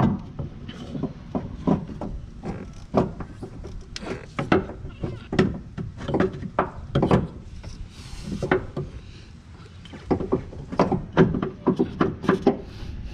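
Irregular knocks, clunks and scraping as a starter motor is worked up into place past the drive axle and its rubber boot under a car.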